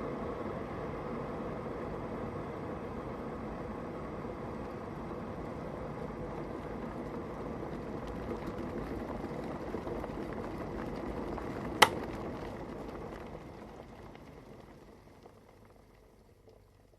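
Kettle at a rolling boil, the water bubbling and rumbling steadily. About twelve seconds in there is one sharp click as the kettle switches off, and the bubbling then dies away over the next few seconds to near quiet.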